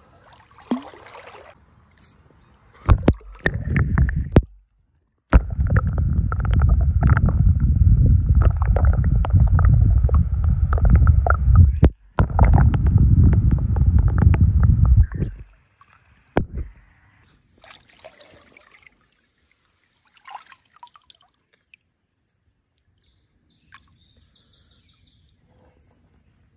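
A kayak on the water, heard through a camera mounted on it: a loud low rumble of hull and water noise lasting about ten seconds, with a short break in the middle. Birds chirp near the end.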